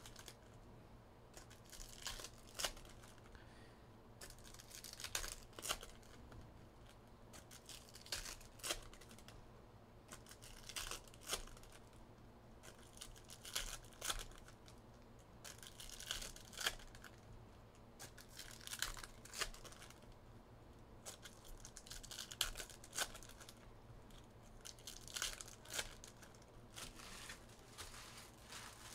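Trading card packs being torn open and their wrappers crinkled and handled: short bursts of tearing and rustling with sharp clicks, one every second or two.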